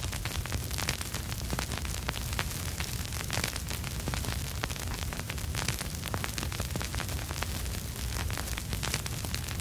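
Vinyl record surface noise with no music: dense, irregular crackles and pops over a steady hiss, with a steady low rumble underneath.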